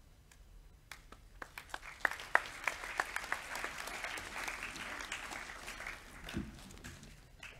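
Audience applause: a few scattered claps build into steady clapping about two seconds in, then die away near the end.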